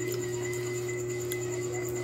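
A steady hum of several held tones that does not change, with a few faint clicks over it.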